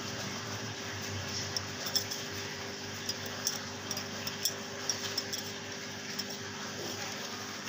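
Knife cutting through a soft sesame-seed burger bun, with a scatter of small sharp clicks over a steady low hum.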